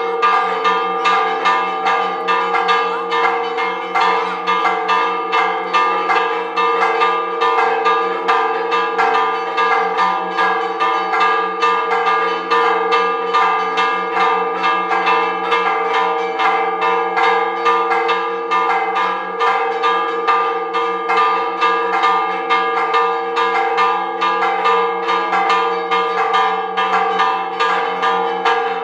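Church tower bells ringing a repique, the Spanish festive peal: quick, continuous strikes in a regular rhythm over the bells' sustained, overlapping ringing.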